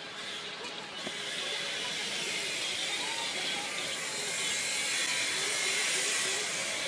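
Soten HugeRock T70 rugged tablet's rubber-and-plastic casing scraped against gritty red dirt and gravel: a steady gritty hiss that gets louder about a second in.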